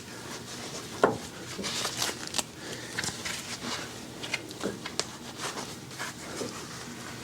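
Scattered clicks and light knocks of hands handling tools and parts, with some rustling; the sharpest knock comes about a second in.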